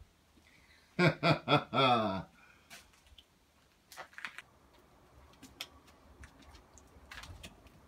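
A man's wordless voice: four quick vocal calls, the last one drawn out and sliding down in pitch. After it come scattered light footsteps and knocks on the floor of an old wooden-floored railway passenger car.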